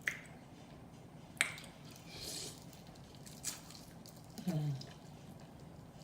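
Close-up mouth eating sounds: sharp, wet lip smacks and clicks every second or two, with chewing in between. About four and a half seconds in, a short hummed note that falls in pitch.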